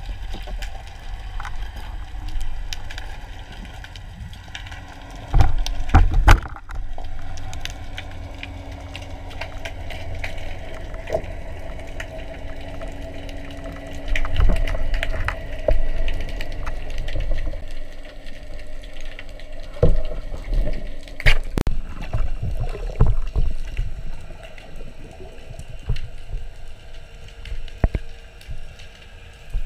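Underwater sound picked up by a diver's action camera: a constant watery rush and a faint steady hum, broken by loud knocks and sloshing bursts about five seconds in, around fourteen to sixteen seconds, and again around twenty to twenty-three seconds, from the diver moving and handling the speargun.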